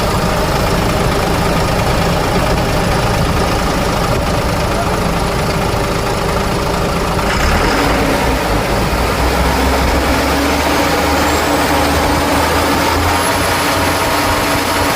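Ashok Leyland truck diesel engine idling steadily, with the abnormal running noise of its coolant pump, the sign of a failing water pump. The tone of the running changes about halfway through.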